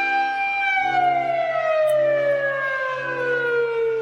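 Outdoor civil defense warning siren holding a steady high tone, then winding down less than a second in, its pitch falling slowly and steadily. Beneath it a lower tone pulses about once a second.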